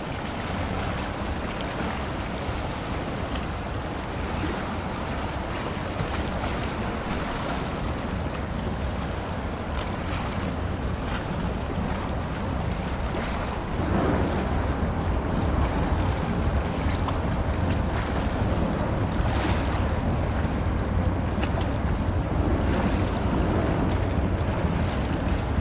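Steady rush of water from a passing general cargo ship's bow wave and wake, with wind buffeting the microphone. It gets louder about halfway through.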